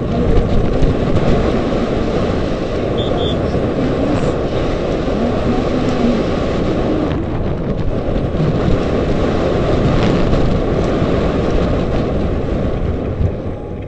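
Wind rushing over a helmet camera's microphone, mixed with the rumble of a downhill mountain bike's tyres running fast over a dirt and gravel track. The noise is loud and steady throughout.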